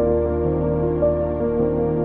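Background music with long held notes in a calm new-age style.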